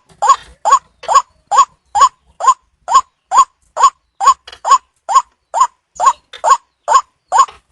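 White-breasted waterhen (ruwak-ruwak) calling: a steady run of short, rising-and-falling notes, about two a second. This is the repeated call used as a lure to draw the birds in for hunting.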